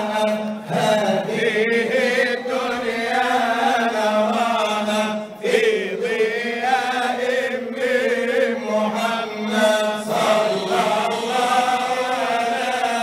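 A man chanting Egyptian Sufi madih into a handheld microphone: one unaccompanied voice in long, ornamented melodic lines that waver around each note, with short breaks about half a second in and near the middle.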